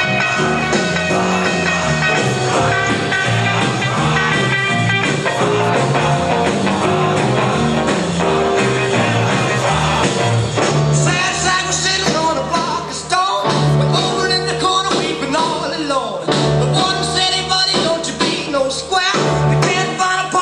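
A rock-and-roll style song with a singer over a band, its bass line stepping from note to note under a steady beat.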